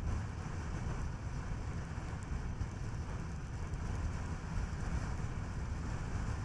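Steady road noise of a Skoda Kodiaq driving: a low, even rumble of tyres and engine with some wind noise.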